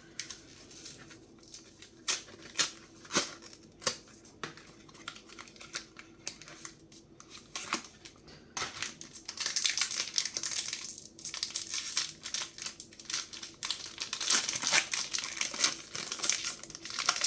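Blister-pack cardboard and plastic packaging being torn and crinkled open by hand. Scattered crackles at first, then a long spell of dense crinkling and tearing from about nine seconds in.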